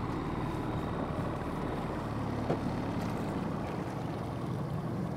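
Boat motor running steadily at low trolling speed, a low even hum.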